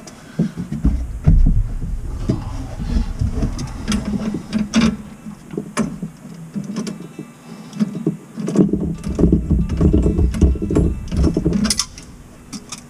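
Tongue-and-groove pliers clicking and clanking against a metal supply-line nut under a kitchen sink as it is loosened, with low thumps and rubbing from hands and tools in the cabinet.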